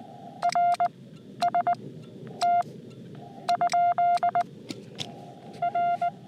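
Morse code sidetone from a Xiegu X6100 transceiver, keyed in short and long beeps of one steady pitch that fit 'RST ?' (R, S, T, then a question mark): a request for a signal report. Under the beeps runs the receiver's steady, narrowly filtered hiss.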